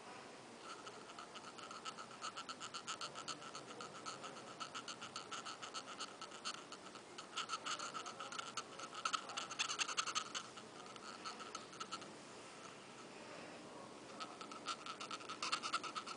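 A pointed pick scraping rust off the face of a viscous fan clutch in quick, repeated strokes, several a second, with a thin scratchy squeal. It goes quiet for a couple of seconds near the end, then starts again.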